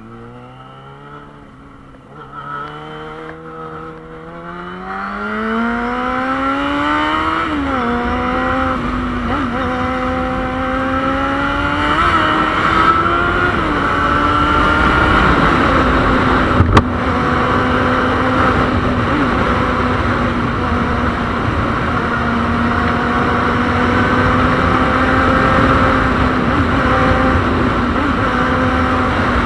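Yamaha Fazer 600 (FZ6) inline-four engine accelerating through the gears: the note climbs, drops at each upshift (about 7 and 12 seconds in), then holds steady at cruising speed. Rushing wind grows with the speed, and there is one sharp click about 17 seconds in.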